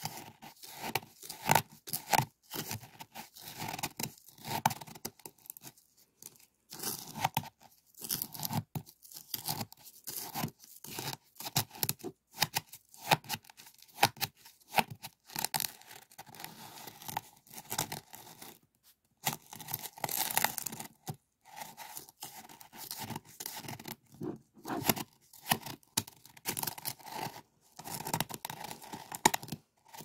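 A plastic spoon scooping and stirring granular citric acid crystals in a small white cup: a crunchy, gritty scraping in many short, irregular strokes, with a few brief pauses.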